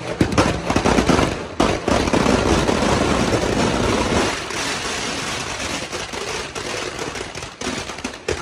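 Firecrackers packed inside a burning Dussehra effigy going off in a dense, rapid crackle of bangs over a continuous roar. It is loudest about two to four seconds in and thins toward the end.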